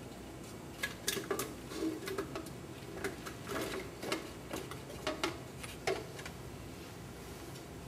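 Chunks of cut fruit dropping from a small bowl into a plastic blender jar: a scatter of light, irregular knocks and patters from about one second in to about six seconds.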